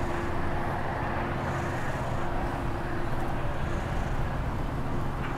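Steady outdoor background rumble with a continuous low hum, unchanging throughout.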